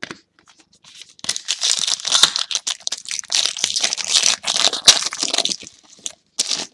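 Shiny foil wrapper of a football trading-card pack crinkling and tearing as it is ripped open by hand and the cards are pulled out: a dense crackle lasting about four seconds, with one more short burst near the end.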